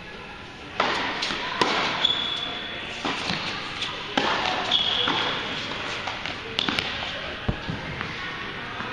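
Tennis balls struck by rackets in a doubles rally, a string of sharp pops spaced about a second apart that echo through an indoor tennis hall, with two short high squeaks of shoes on the hard court.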